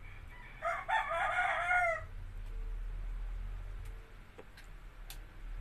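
A rooster crowing once, a single pitched call of about a second and a half with a few breaks early on and a drawn-out ending. A few faint clicks follow later.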